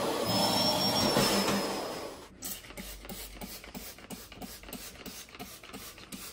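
Philips canister vacuum cleaner running with a steady high whine, cut off suddenly a little over two seconds in. Then a faint, even rhythmic tapping, about three beats a second.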